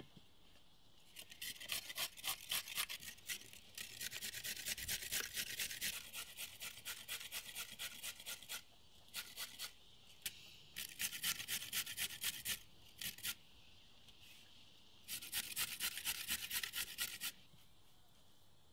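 Carrots being grated on a metal cone grater: quick, rhythmic rasping strokes in several runs of two to three seconds, with short pauses between.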